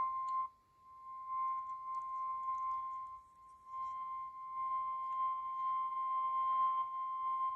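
Emergency Alert System warning alarm: one steady tone a little above 1 kHz, the 1050 Hz NOAA Weather Radio warning tone, received over the radio with hiss that fades in and out. The tone cuts off at the end, where the spoken warning begins.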